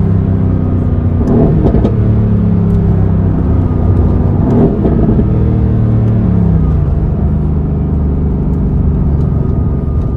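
Mercedes-AMG car's engine and exhaust running steadily, with two short swells of revs about one and a half and four and a half seconds in, and the engine note dropping in pitch about six and a half seconds in.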